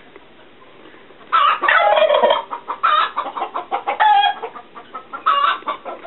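Domestic turkeys calling: a rapid string of loud calls begins about a second in and runs for about three seconds, with a shorter burst near the end, from a flock around a tom in courtship display.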